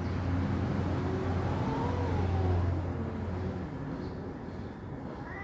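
A cat's long, low yowl during mating, rising and then falling in pitch over about two seconds, over a steady low hum.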